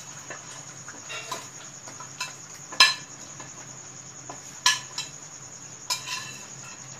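A spoon clinking against a plate and the cooking pan as fried pointed gourds (parwal) are pushed into masala gravy: a few sharp, ringing clinks, the loudest about three seconds in, then a pair near five seconds and another near six. Under them runs a steady low hum and a faint high whine.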